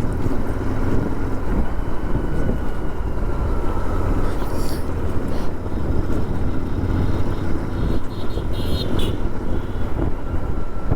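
Royal Enfield Interceptor 650's parallel-twin engine running steadily while riding on the road, with road and wind noise on a microphone that has lost its foam filter cover. Brief higher-pitched sounds flicker in about halfway through and again near the end.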